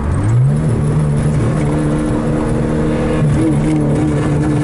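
1990 Acura Integra's 1.8-litre four-cylinder engine revved quickly from idle and held at a steady high speed, with a brief wobble about three seconds in. Its fuel injectors are failing, which the owner says puts the engine into limp mode.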